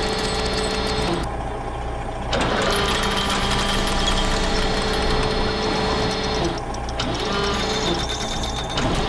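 Cartoon soundtrack: sustained music-like tones that change a few times, over a fast, steady mechanical rattle.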